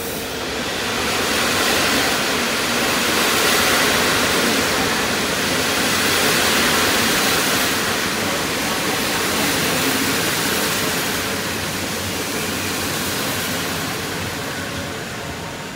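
PKP Intercity passenger coaches rolling past along a station platform: a steady rushing of wheels on rails that swells a couple of seconds in and eases off toward the end.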